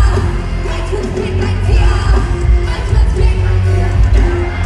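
Live pop concert music played loud over an arena sound system: a heavy, pulsing bass beat with a short note repeating over it.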